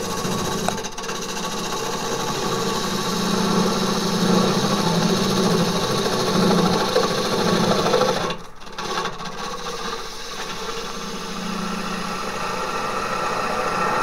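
Wood lathe spinning a green Japanese ornamental cherry blank while a turning tool cuts the wet wood, a steady hum with a scraping hiss. The cut breaks off briefly about eight seconds in, then resumes.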